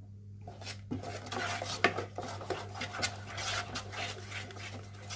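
Wooden spatula stirring and scraping a runny almond-and-sugar paste around a nonstick pan in quick repeated strokes, starting about half a second in, over a steady low hum.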